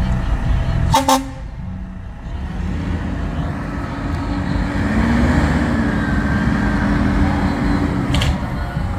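Fire engine pulling out with its engine rumbling. There is a short hiss-like burst about a second in, then a steady low horn tone from about three seconds in until about eight seconds in.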